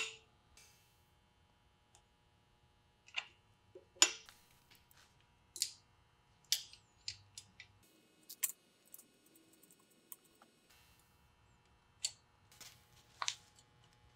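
Scattered sharp clicks and clinks of metal brake-line fittings and hose clips being handled and pressed into place on a steel axle housing and drum-brake backing plate, spaced irregularly a second or more apart.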